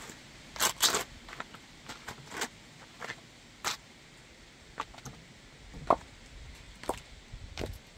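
Silver wedge-sandal soles grinding on crushed cucumber and gritty pavement: a string of sharp wet crackles and scrapes, loudest about a second in, then a few single scuffs as the shoes step away.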